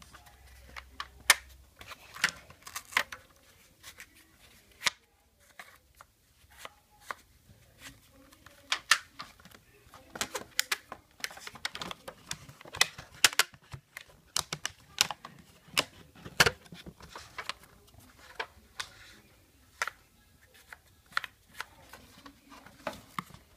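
Corrugated cardboard VR viewer being handled close to the microphone: irregular sharp taps, clicks and scrapes of the cardboard, some single, some in quick clusters.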